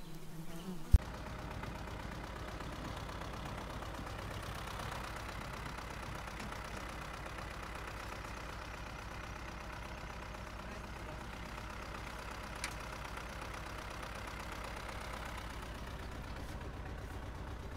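A sharp click about a second in, then a tractor engine running steadily with a low, even rumble.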